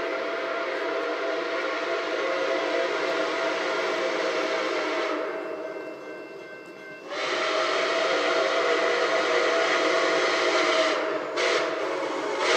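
Steam whistle of Nickel Plate Road 765, a Berkshire (2-8-4) steam locomotive, blowing for a grade crossing as it approaches: a long blast, a second long blast, then a short one. This is the standard crossing signal.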